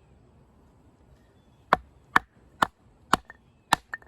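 Five sharp chops of a Condor Heavy Duty Kukri's thick high-carbon steel blade into a piece of log, about two a second, starting a little under halfway in.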